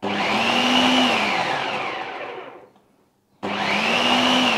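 Bosch food processor motor pulsed twice to break up a load of feta cheese and herbs: each pulse spins up with a whine that rises and then sags as the motor winds down, the second starting about three and a half seconds in after a short silence.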